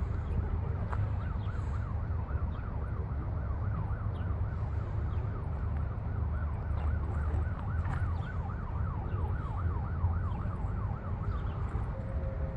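Emergency vehicle siren in a fast yelp, the pitch sweeping up and down about four times a second, fading near the end, over a steady low rumble.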